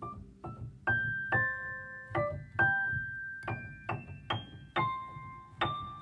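Background outro music: a slow melody of single high notes on a piano-like keyboard, each struck and left to ring out.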